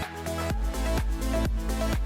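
Electronic background music with a steady beat of about two beats a second; a deep bass line comes in about half a second in.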